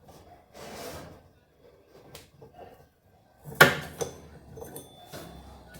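Hands working under a tipped-over washing machine while its drive belt is taken off and the seized motor is tried: a brief rubbing sound about a second in, then one sharp knock about three and a half seconds in, with light handling clatter.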